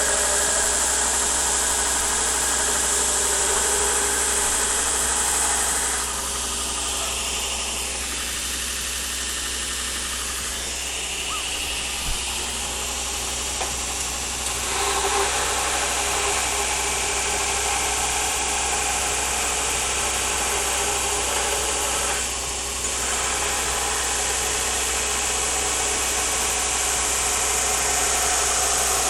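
A steady running machine noise with a low hum under it. It eases off for several seconds starting about six seconds in, and briefly again about twenty-two seconds in.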